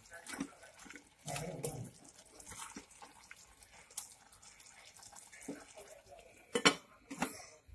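A steel spoon stirs thick curry in an aluminium pot, with soft wet sloshing and light clinks against the pot. Near the end, the aluminium lid is set on the pot with a sharp metallic clank, the loudest sound, followed by a smaller knock.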